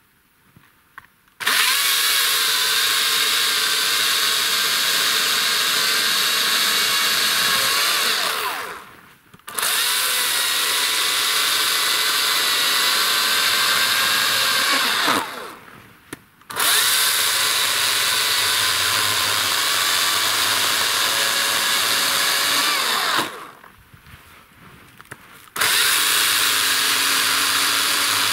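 Greenworks cordless battery chainsaw cutting through a fallen log in four long runs of several seconds each. In the short pauses between runs the motor's whine slides down in pitch as the chain spins down.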